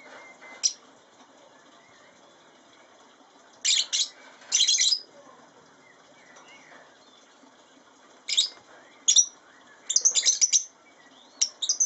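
Lovebirds giving shrill, high-pitched chirps in short bursts that come in clusters a few seconds apart, the busiest run near the end.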